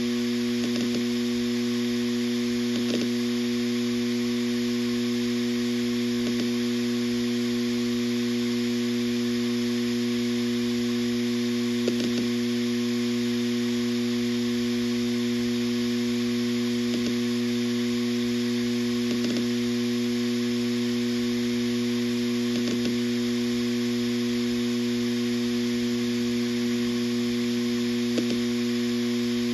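Western Digital RE 4TB 7200 RPM enterprise hard drive spinning, a steady hum with a buzz from the recording phone resting loosely on the drive. Light ticks come at irregular intervals every few seconds.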